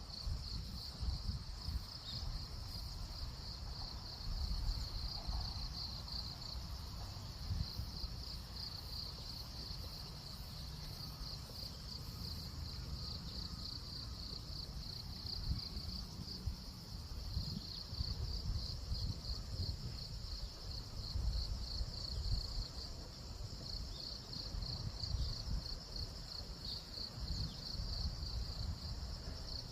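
Crickets singing: continuous high-pitched pulsing trills that keep going with only slight dips, over a low, uneven rumble.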